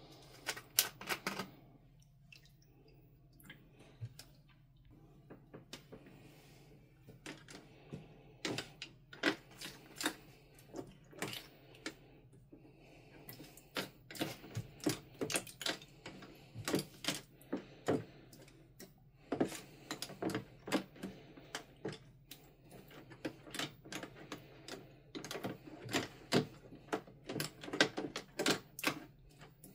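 A spoon stirring and scraping through thick, foamy slime in a plastic tray: irregular runs of wet, sticky clicks and squelches with short pauses between.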